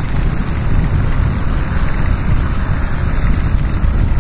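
Yamaha XTZ 250 motorcycle riding steadily through rain on a wet road: an even rush of wind and tyre spray with a heavy low rumble underneath.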